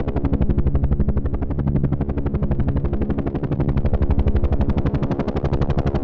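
Helicopter rotor chopping in a fast, steady beat over a low, even engine tone.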